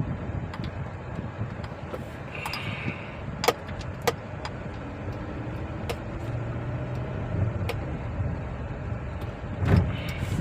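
Car engine running with a steady low rumble, heard with a few sharp clicks about three and a half and four seconds in and a thump near the end. The engine has a misfire that the mechanic puts down to cylinder 1 making no power.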